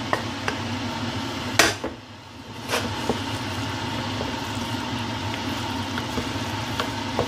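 A pan is emptied into a stainless steel pot, with two sharp knocks about a second apart near the start. Then a wooden spoon stirs pasta and minced-meat sauce in the pot, with small clicks against the metal. A steady hum runs underneath.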